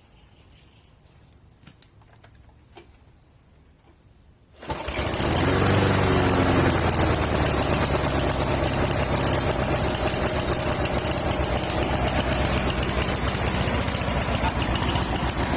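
Snapper walk-behind lawn mower's small engine catching suddenly almost five seconds in and then running steadily and loudly. After its repair it starts and runs without the misfiring and hard starting it had before.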